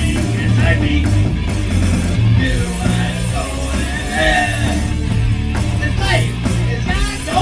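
Rock band playing loud at a sound check, with a voice singing and yelling over a heavy low end.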